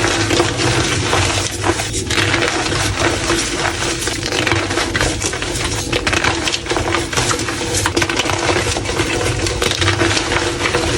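Blocks of gym chalk being crushed, a dense continuous crunching and crackling with a steady low hum underneath.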